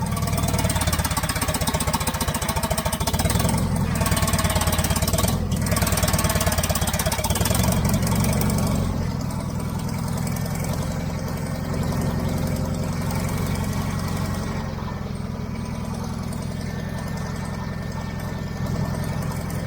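Engine of the machine working the paddle forks running steadily with a rapid, even clatter. It is louder for the first nine seconds or so, then drops a little and carries on.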